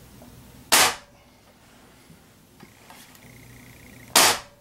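Two shots from a rebuilt .25-calibre Ruger Air Magnum break-barrel spring-piston air rifle: two sharp cracks about three and a half seconds apart, each with a brief ringing tail. The heavy 24.38-grain pellets leave at about 640 feet per second, below the speed of sound, so there is no sonic crack from the pellet.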